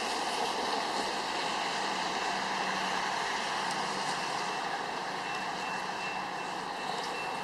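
Steady rushing noise with a few faint steady tones, holding level throughout.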